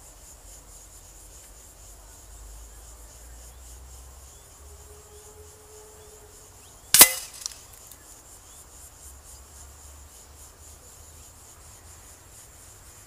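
One sharp crack of a PCP air rifle shot at a paper target 70 metres off, followed about half a second later by a smaller knock. Insects chirp steadily and wind rumbles on the microphone.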